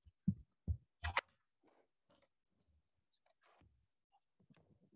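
Three or four short soft clicks and knocks in the first second or so, then near silence: room tone.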